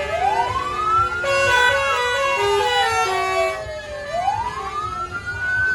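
A siren wailing in slow rises and falls, climbing for about two seconds and sinking for about two, twice over. In the middle a bus's multi-tone telolet horn sounds a short tune of stepped notes alongside it.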